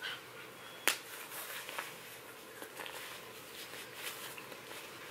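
Cloth diaper being fastened by hand: one sharp snap-like click about a second in, then fainter clicks and rustling of the fabric.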